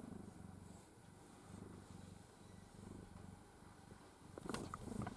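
Elderly domestic cat purring faintly and steadily, the purr swelling and fading in slow cycles. A few soft clicks and rustles come near the end.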